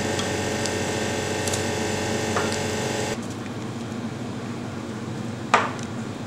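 Horizontal ice cream batch freezer running with a steady hum as the finished ice cream is scraped out of its barrel. The hum drops in level about three seconds in, and near the end there is a single sharp knock.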